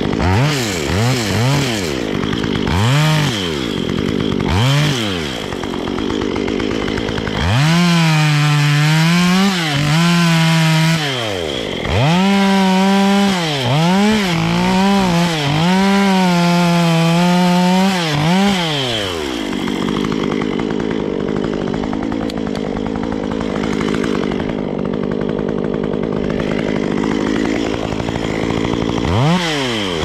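Stihl 193 two-stroke chainsaw blipped up and down several times, then held at high revs, cutting through a log with the pitch dipping repeatedly under load for about ten seconds. It drops back to a steady idle about two-thirds of the way through and revs up again at the very end.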